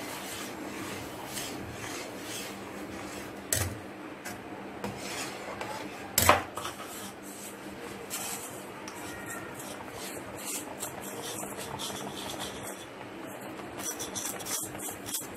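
Steel spatula stirring semolina into boiling jaggery syrup in a steel pan: a steady scraping and rubbing against the pan. A sharp clank comes about three and a half seconds in and a louder one about six seconds in, with a few lighter clinks near the end.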